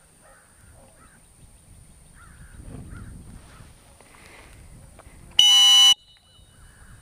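A single short blast on a dog-training whistle, a shrill steady tone of about half a second, near the end. In retriever handling a single blast is the signal for the dog to stop and sit, ready for a cast. Faint chirps sound around it.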